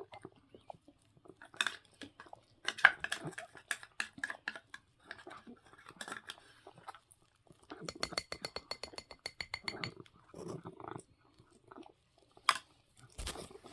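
Cat eating his breakfast: irregular crunchy chewing clicks, with a fast run of clicks about two-thirds of the way through.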